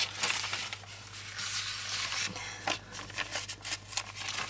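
Paper sticker sheets rustling and sliding over one another as they are shuffled and leafed through by hand, with irregular small crinkles and scrapes.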